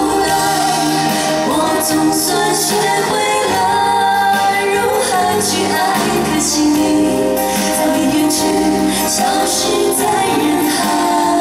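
A woman sings a pop song live into a handheld microphone, with band accompaniment.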